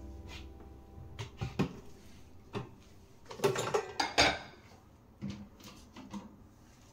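Light knocks and clinks of a rice cooker's lid and pot being handled on a kitchen counter, a few scattered taps followed by a denser clatter about three to four seconds in.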